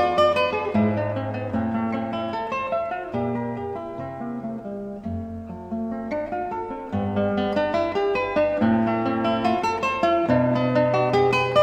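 Background music: acoustic guitar, plucked and strummed, with the bass notes changing about once a second.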